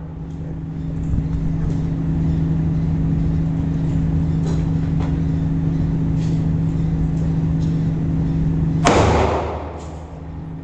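A single loud gunshot about nine seconds in, its crack trailing off in the room's echo, over a steady low hum. A few faint distant shots come earlier.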